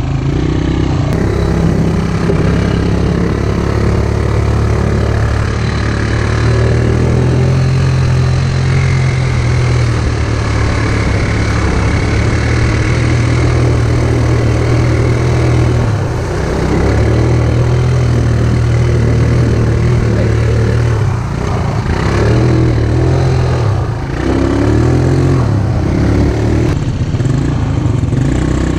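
ATV (quad bike) engine running under the rider, its pitch stepping up and down with the throttle and dipping briefly a few times, over the rush of tyres and spray; partway through the quad splashes through a shallow river.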